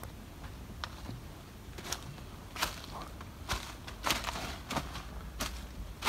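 Footsteps crunching through dry leaf litter and twigs on a forest path, a sharp crackle every half second to a second.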